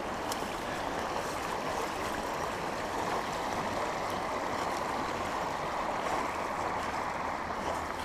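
River water rushing steadily over a shallow rocky bed, running high after rain.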